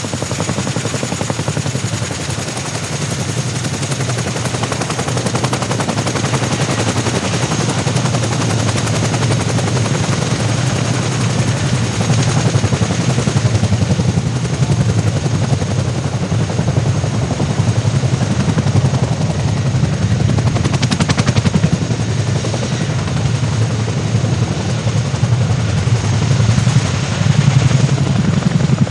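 Boeing CH-47F Chinook helicopter's tandem rotors beating in a rapid, steady chop, with a thin high turbine whine over it, growing a little louder toward the end.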